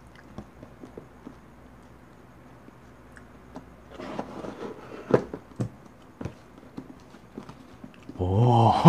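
Faint handling of a cardboard box and its packaging, with a brief rustle and a few sharp taps and knocks about four to six seconds in. A man's voice breaks in near the end.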